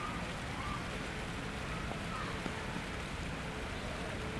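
Steady outdoor ambient hiss, with a few faint short chirps.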